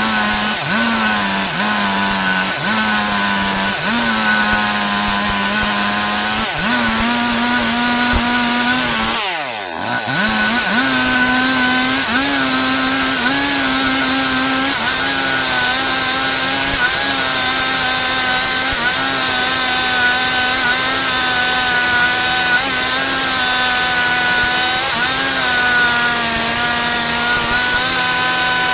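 Stihl MS 382 two-stroke chainsaw running at high revs while ripping through a log, its pitch sagging and recovering under the load of the cut. About nine and a half seconds in the revs drop sharply for a moment, then climb back up.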